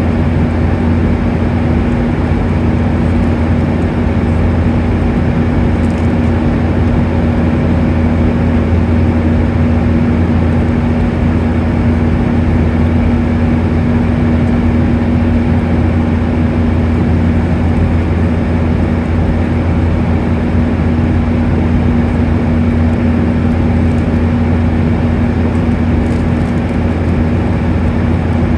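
Steady cabin noise of a Boeing 737-800 in flight, heard from a window seat over the wing: its CFM56-7B turbofans and the airflow make an even drone with a steady low hum.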